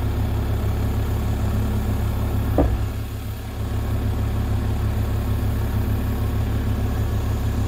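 Heavy-equipment diesel engine idling steadily with an even low pulse, and a single sharp knock about two and a half seconds in.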